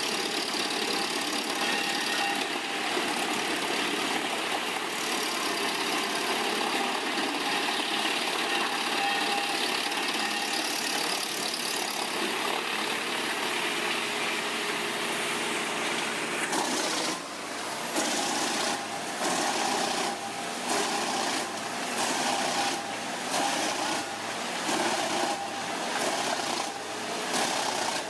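Komptech Chippo 8010C wood chipper running, a dense steady machine din of engine and cutting gear. About 17 seconds in it turns pulsing, dipping and surging about once a second.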